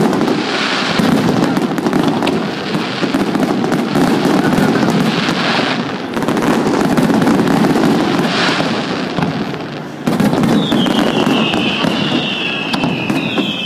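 Fireworks display: loud, continuous bangs and crackling from aerial shells bursting one after another. Near the end come two high, falling whistles.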